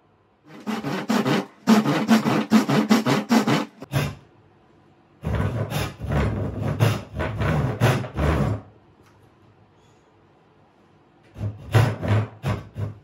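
A hand tool working wood in quick back-and-forth strokes, about four or five a second, in three runs with short pauses between them.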